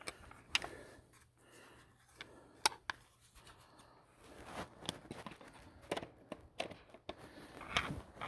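Scattered sharp clicks, taps and short scrapes of plastic and metal parts being handled as a Ryobi 40-volt cordless chainsaw's bar and chain are refitted and its chain tensioner is worked by hand.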